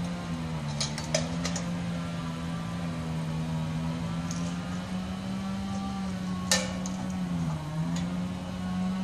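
Chainsaw running at high revs while cutting a fallen limb, its pitch dipping now and then under load. A few sharp cracks sound over it, the loudest about six and a half seconds in.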